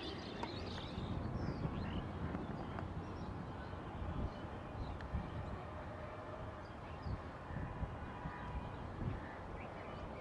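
Faint bird chirps over a steady low rumble that swells and dips in gusts.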